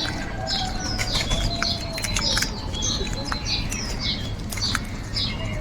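Birds calling: a busy series of short, high-pitched calls, about two to three a second, over a steady low background rumble.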